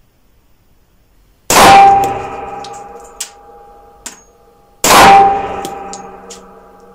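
Two shots from a Peter Stahl 1911 pistol in 10mm Auto, about three seconds apart, each followed by a long metallic ringing that slowly dies away. A couple of faint clicks fall between the shots.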